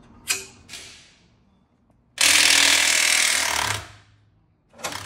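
A power wrench runs in one steady burst of about a second and a half, after a couple of light tool clicks, with a sharp knock near the end.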